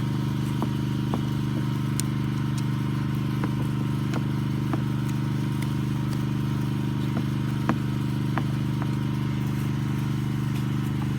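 Suzuki Address V50 scooter engine idling steadily, with scattered light clicks.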